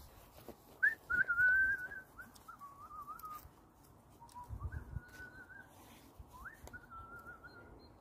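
Someone whistling a short repeated phrase, each a quick upward slide into a wavering held note, about four times over. Faint thumps of movement come about four and a half seconds in.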